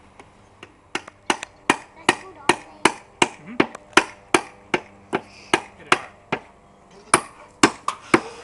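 Claw hammer driving nails into a wooden birdhouse with a child's steady strokes, about two or three sharp knocks a second. The hammering starts about a second in and pauses briefly near the end.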